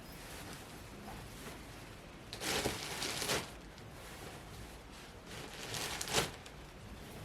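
Rustling of fabric pillow covers and fibre filling being handled, in two bursts: a longer one about a third of the way in and a shorter one ending sharply near the end.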